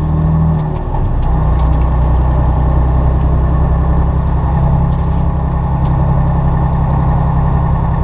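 Semi truck's diesel engine pulling away at low speed. The engine note shifts under a second in, then runs steady.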